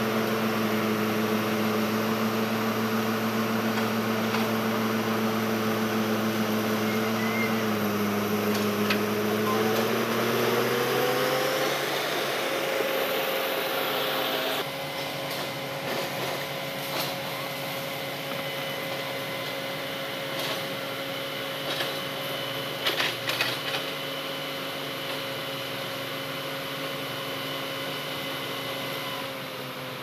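Crawler bulldozer's diesel engine running steadily, its pitch rising slightly about ten seconds in and then holding at the higher speed. Its level drops about halfway through, and a few short clicks come near the end.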